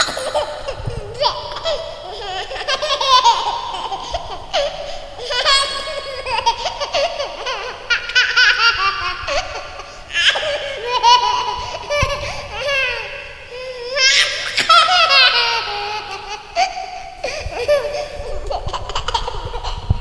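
A baby laughing, high-pitched, in repeated bouts with short pauses between them.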